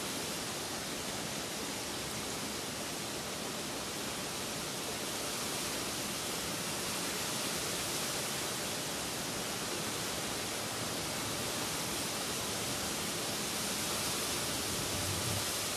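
Steady rain falling, an even hiss that holds at one level.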